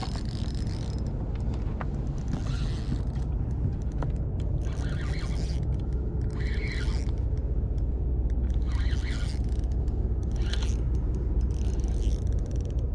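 Spinning reel being cranked while a hooked fish is fought in, its gears whirring in short bursts every second or two over a steady low rumble.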